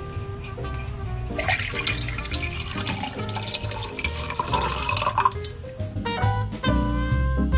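Hot coffee poured from a glass drip-coffee-maker carafe into a ceramic mug, a hissing, splashing pour from about a second and a half in to about six seconds, with background music.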